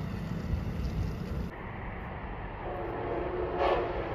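Low rumble of a train pulling away. It breaks off abruptly, then a train horn sounds in the distance as a held chord of several notes for about a second and a half.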